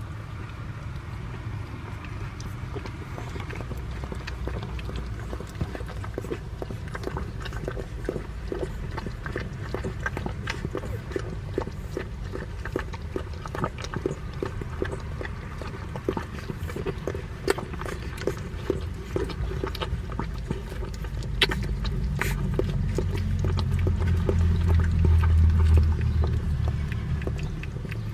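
San'in Shiba puppies eleven days old suckling at their mother's teats: a steady run of small wet clicks and smacks as they nurse vigorously. A low rumble grows louder for several seconds near the end.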